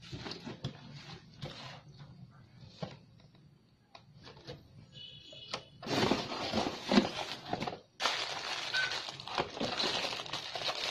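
Cardboard packaging being handled: a toy quadcopter's box opened and its cardboard flap and inner carton slid out, with light knocks and rustles at first, then a longer run of scraping and rustling from about six seconds in.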